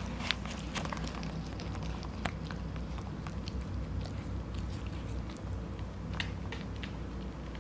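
Corgi puppy chewing and biting at a wedge of watermelon: scattered small wet clicks and smacks over a steady low hum.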